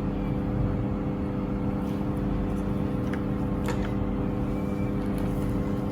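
A steady mechanical hum made of several fixed tones, with a few faint clicks scattered through it.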